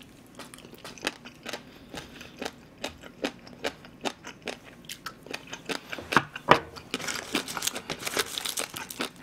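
A man chewing food close to the microphone: an irregular run of crunchy, moist chewing clicks, a couple every second, with two louder ones about six seconds in and busier chewing near the end.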